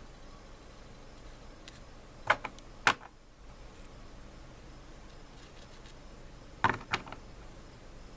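Short sharp clicks and taps of small hard parts or tools being handled and set down on a work surface, three in quick succession a little over two seconds in and two more close together near seven seconds, over a faint steady hum.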